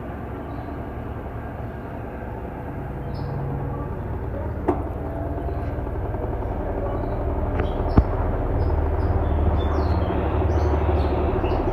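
Mueller Energy 8 kg automatic washing machine running its intermediate spin: a steady mechanical rumble that gets louder as the drum speeds up, with two sharp clicks, about five and eight seconds in.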